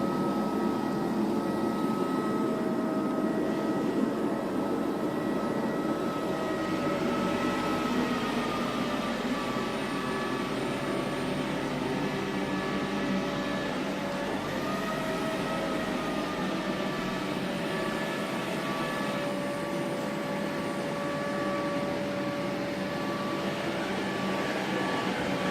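iClebo Omega robot vacuum running in turbo mode: a steady suction-motor whine over the whirr of its fan and brushes, the pitch dipping slightly now and then as it moves.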